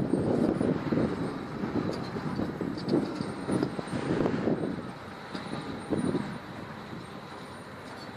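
Handheld gas torch burning with a rough, gusting roar as it heats a heat-shrink sleeve over a pipeline field joint; the roar drops lower about six seconds in.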